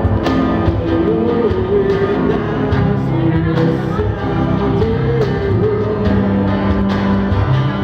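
Live acoustic pop-rock band playing: acoustic guitars with steady cajón beats, and a melody line carried over the chords from about a second in to about six seconds in.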